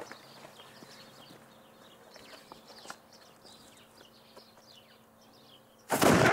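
Faint chirping in the background, then near the end a harquebus, an early muzzle-loading gun, fires a single loud shot that rings on.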